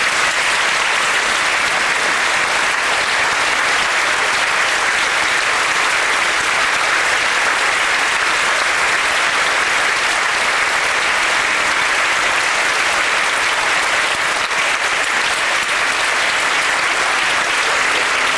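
Large audience applauding steadily, a dense sustained ovation of many hands clapping.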